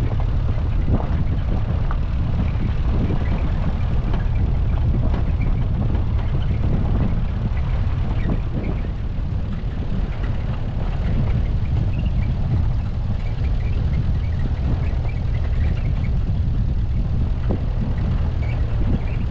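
Steady low rumble of a car being driven: road and running noise at an even level.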